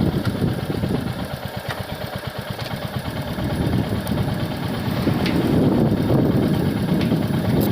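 Royal Enfield Hunter 350's single-cylinder engine running with an even low beat, dropping to a quieter idle about a second in and picking up again to a louder run from about halfway.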